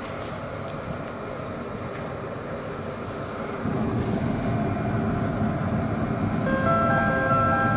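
Interior noise of a Seoul Subway Line 2 train car standing in a station before its doors close: a steady low rumble that gets clearly louder about three and a half seconds in. Near the end a short run of electronic chime tones at several pitches comes in.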